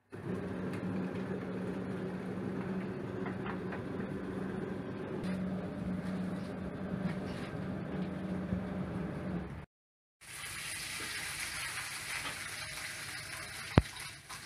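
Twin-tub washing machine running: a steady motor hum with water churning in the tub. After a brief break, a different, steady hiss takes over, with one sharp knock near the end.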